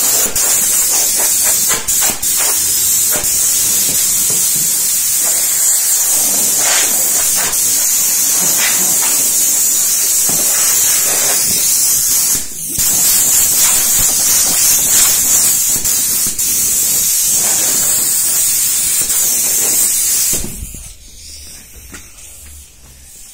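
Compressed air hissing loudly from an air blow gun on an air line, blowing sanding dust off a sanded panel. The flow breaks off briefly about twelve seconds in, then stops for good about twenty seconds in.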